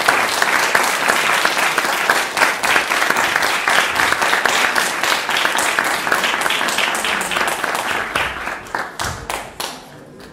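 Audience applauding, dense steady clapping that thins to scattered separate claps and dies away near the end.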